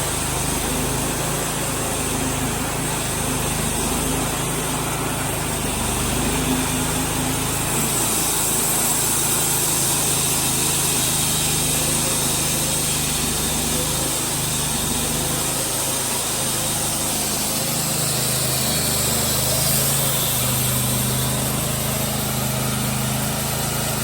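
Small gasoline engine running steadily under load with a high hiss over it, its pitch holding nearly even.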